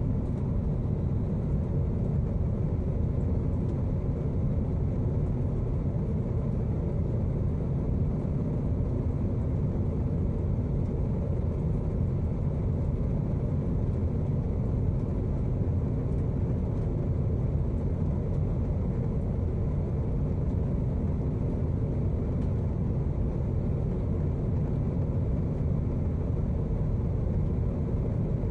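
Steady low rumble of an airliner's cabin in flight: jet engine and airflow noise, unchanging throughout.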